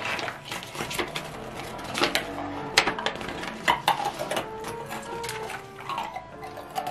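A stiff folded paper insert being unfolded and handled, crackling with sharp irregular snaps, over quiet background music.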